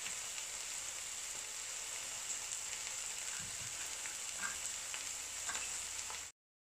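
Dandelion greens sizzling steadily in hot oil in a frying pan, with a few light knife taps on a wooden cutting board as leaves are chopped. The sound cuts off suddenly near the end.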